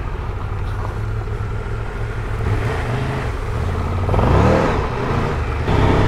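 Triumph Tiger 1200 Rally's 1160cc three-cylinder engine running while the bike is ridden off-road. About four seconds in, the engine note briefly rises as the throttle is opened, then settles.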